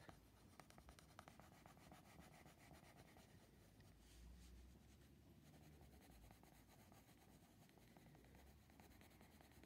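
Faint scratching of a Derwent Coloursoft coloured pencil shading lightly on paper.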